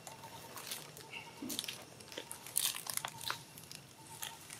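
Dry leaf litter crackling and rustling in scattered small clicks, with a brief high squeak about a second in.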